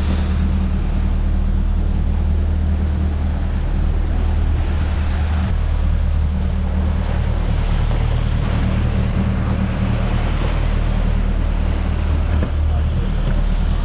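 A fishing boat's engine running steadily at trolling speed, a low even hum, with the rush of the churning wake behind the stern.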